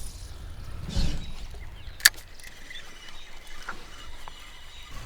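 A fishing rod being cast from a canoe: a brief swish about a second in, then a single sharp, loud click a second later. After that, faint small knocks and a low hiss.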